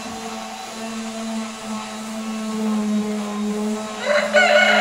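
Electric orbital sander running steadily on a wooden board, a constant motor hum. About four seconds in a rooster crows loudly over it.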